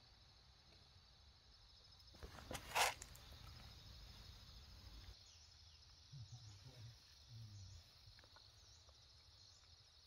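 Faint, steady high-pitched insect chorus, with one sudden loud noise about three seconds in and a few soft low knocks later on.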